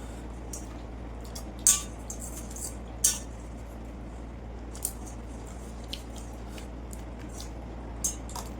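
Eating from a plate of water rice and fried fish: a few scattered sharp clicks and clinks of the plate and mouth, the clearest about two and three seconds in, over a steady low hum.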